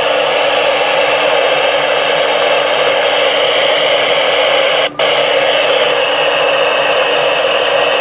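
Steady, loud static hiss from a Uniden Pro-505XL CB radio's speaker: the receiver with its squelch open. The hiss cuts out for a moment about five seconds in, as the channel is switched from 20 to 19.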